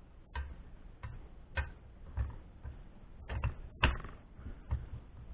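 Sharp, irregular clicks and light knocks, about eight of them, the loudest a little before the fourth second: small metal parts of an electric fan motor being handled and fitted together during reassembly.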